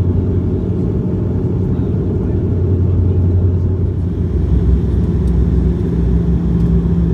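Steady low drone of a Porter Airlines Dash 8-400 turboprop's engines and propellers heard inside the cabin. About four seconds in, the hum shifts up in pitch.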